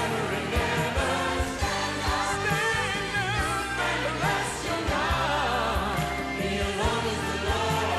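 Praise-and-worship music: a group of voices singing together over a full band, with drum hits throughout.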